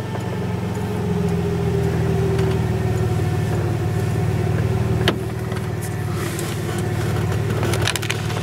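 A 1994 Ford F-150 pickup's engine running at low speed as the truck creeps along, heard from inside the cab, a steady low hum. A single sharp knock comes about five seconds in, and a few lighter clicks near the end.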